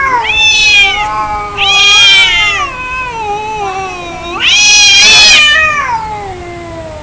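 Angry cat caterwauling: long, drawn-out yowls that waver up and down in pitch, swelling loud three times and trailing off near the end, the threatening cry of cats squaring up to fight.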